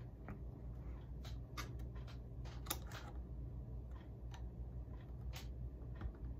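Faint, irregular clicks and scrapes of a flathead screwdriver tip working against the metal truck frame of a Mantua/Tyco model locomotive as it pushes a truck-frame pin out, over a low steady hum.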